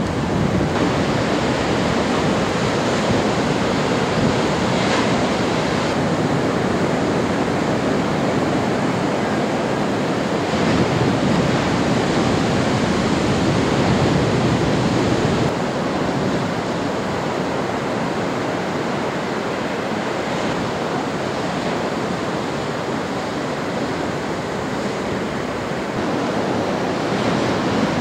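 Heavy beach-break surf: waves breaking and whitewater rushing in a continuous noise, with louder surges as big waves break, easing a little from about halfway.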